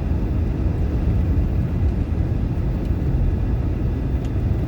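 Steady low rumble of a car driving along the road, heard from inside the cabin: engine and tyre noise at a constant speed.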